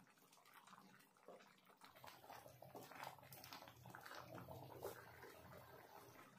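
Faint, wet stirring of thick dal in a pan with a wooden spatula, with a few light clicks of the spatula against the pan.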